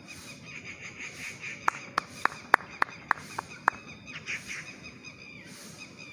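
Faint bird calls, and a bit over a second and a half in, a quick run of eight sharp clicks over about two seconds.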